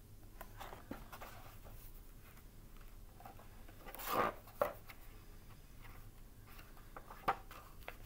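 Pages of a large picture book being handled and turned: faint rustles and taps, with a louder paper swish about four seconds in and a shorter one just after.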